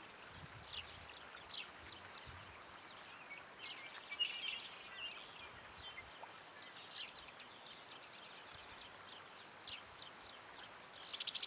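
Small birds chirping: scattered short calls, busiest about four seconds in, over a faint steady outdoor background, with a fast run of high ticks near the end.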